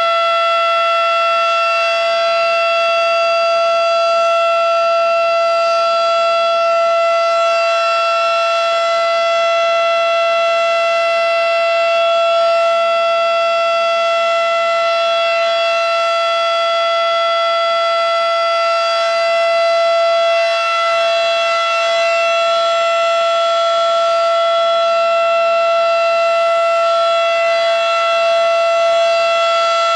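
Federal Signal Model 5 mechanical outdoor warning siren sounding a loud, steady tone that holds one pitch without winding up or down, during a scheduled siren test.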